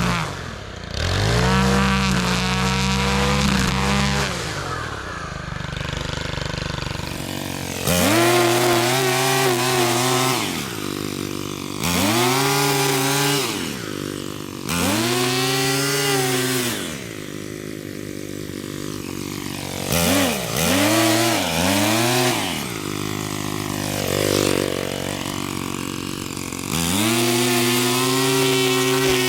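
Small gas engine of a handheld power tool, revved up and let back down over and over, each burst lasting about two to four seconds. For the first four seconds a deeper engine runs steadily.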